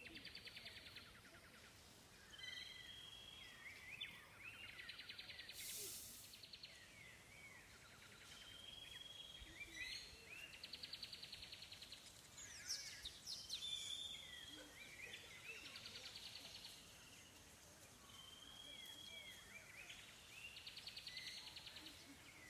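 Faint songbird calls: a repeated phrase of a short whistle followed by a rapid buzzy trill, coming back every few seconds, with scattered short chirps in between.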